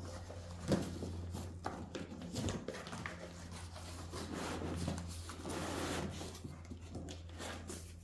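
Cardboard box and plastic packaging of a new vacuum cleaner being handled as it is unpacked: irregular rustling, crinkling and light knocks and scrapes.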